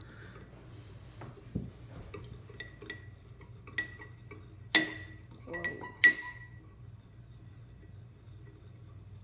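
A spoon clinking against a bowl while stirring a runny slime mixture of glue, paint, water and baking soda. It makes a string of irregular, ringing clinks, the two loudest coming about five and six seconds in.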